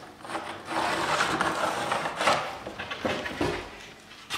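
Plywood riser piece being handled and marked against a stair: a scratchy scraping for about two seconds, then a couple of light knocks.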